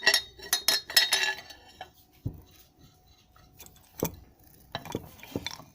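Metal clinking and knocking as the steering-rack shaft and its parts are worked into the housing: a quick run of sharp, ringing clinks in the first second and a half, then a few separate knocks.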